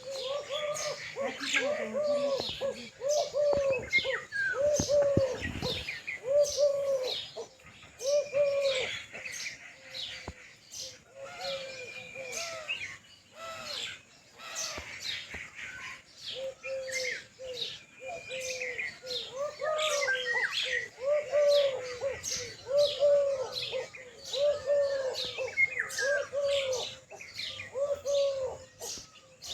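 Birds chirping and calling: many short high chirps throughout, over a run of repeated lower arched calls at about two a second that drop out for several seconds in the middle.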